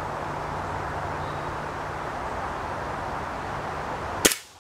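A Gamo break-barrel pellet rifle fires once, a single sharp crack near the end, over a steady background hum and hiss.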